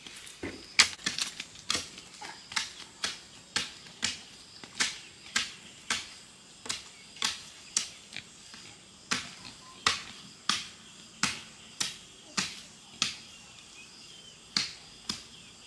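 A steady series of sharp knocks, about two a second and evenly spaced, like blows from a hand tool.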